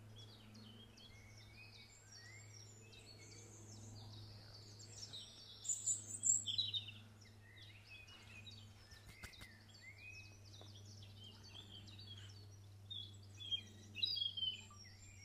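Several wild birds chirping and calling over one another, with a few louder bursts of calls about six seconds in and again near the end, over a steady low hum.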